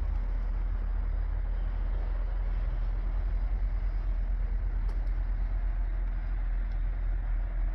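Hino J08 7.6-litre inline-six diesel engine of a 2019 Hino 268 truck idling steadily, heard close up from the open engine bay.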